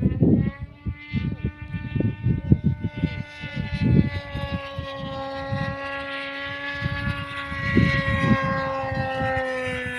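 Small RC model-plane engine running at high revs, a steady whine that drifts slowly up and down in pitch as the plane flies, with wind buffeting the microphone.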